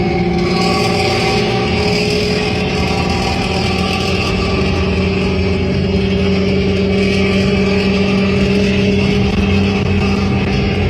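A vehicle engine running through a loud 'snoring' (ngorok) exhaust, held at a steady speed with small shifts in pitch.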